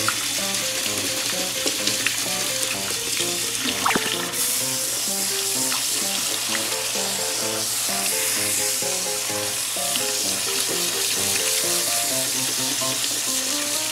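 Tap water running steadily onto rice in a mesh strainer over a stainless steel sink, a continuous splashing hiss that gets a little stronger about four seconds in. Light background music plays over it.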